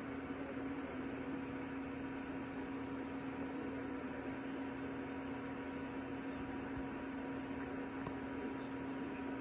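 Creality Ender 3 V3 SE 3D printer running: a steady electric hum with even fan noise.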